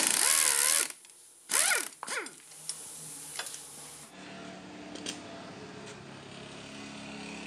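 Spanner turning the steel lower-arm ball-joint nut, metal on metal: two loud rasping strokes with a squeal that rises and falls, then a few light clicks. From about four seconds in, a steady low hum.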